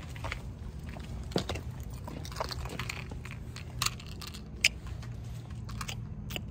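Wind rumbling on a phone's microphone, with scattered clicks and rustles from handling the phone, and a short kiss smack about four and a half seconds in.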